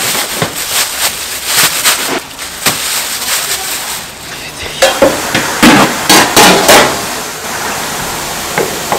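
Plastic wrap and plastic gloves crinkling and rustling as wrapped slabs of meat are handled in a plastic basket. The crinkles come in two busy spells, the first in the opening seconds and the second a little past the middle.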